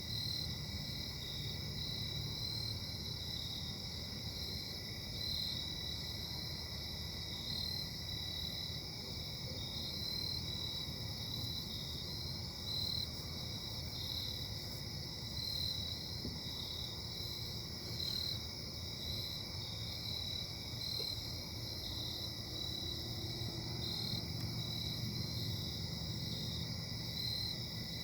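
Distant industrial machinery running steadily: a low rumble with high, ringing whine tones, which the uploader puts down to bad bearings.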